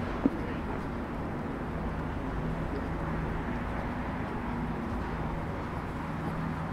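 City street ambience with a vehicle engine running steadily under the general traffic noise. There is one short knock just after the start.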